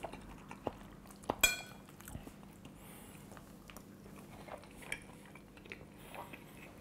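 A fork clinking sharply on a plate once about a second and a half in, then quiet chewing and small clicks of cutlery.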